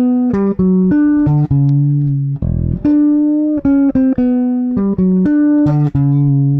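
Electric bass guitar playing a melodic phrase of single plucked notes high on the neck, the phrase coming round about every four seconds, with a short dull thump about two and a half seconds in. It is played in the manner of a beginner, with note lengths not held steady.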